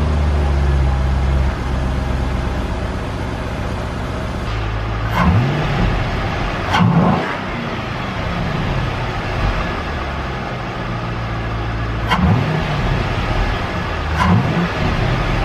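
A 2004 C5 Corvette's LS1 5.7-litre V8, freshly fitted with a Vararam ram-air intake, runs at a high idle just after starting and drops in speed about a second and a half in. It is then blipped four times, each rev rising and falling quickly in pitch.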